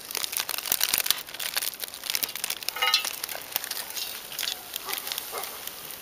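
Thin plastic film crinkling and crackling as it is handled and lifted off the top of a beehive, densest in the first half. A brief high tone sounds about halfway through.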